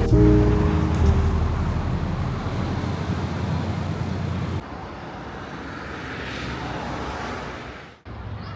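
Road traffic noise: a heavy low rumble that cuts off abruptly a little past halfway, giving way to a quieter traffic hiss that swells and then fades out just before the end.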